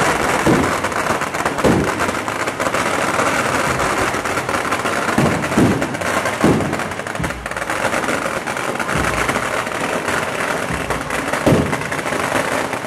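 A string of firecrackers going off, a dense rapid crackle of pops with a few louder bangs standing out.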